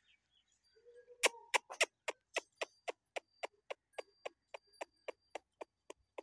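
An animal calling in a fast, even series of short, sharp chirping calls, about four a second, starting about a second in and slowly growing fainter.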